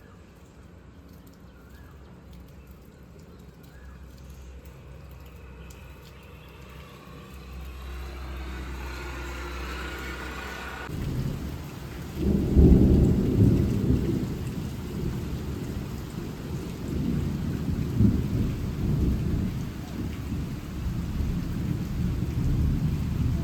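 Rain falling, quieter at first. From about halfway it is much louder, with uneven low rumbling.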